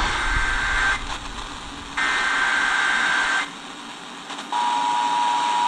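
Emergency Alert System SAME header: two harsh, screechy data bursts, each about a second long, with a pause between. About four and a half seconds in, the steady two-tone EAS attention signal begins. Together they mark the start of an alert, here a severe thunderstorm warning.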